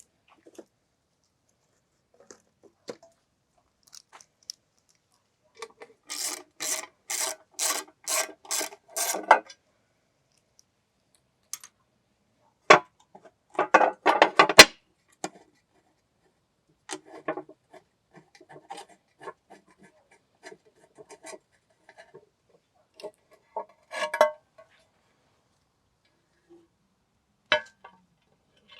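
Hand work on a hard surface: about seven rhythmic rasping or scrubbing strokes, roughly two a second, then a click, a brief scraping burst ending in a sharp knock, and scattered light clicks and taps.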